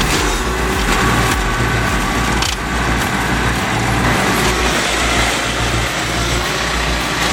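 A large machine engine running steadily under load, with a single sharp knock about two and a half seconds in.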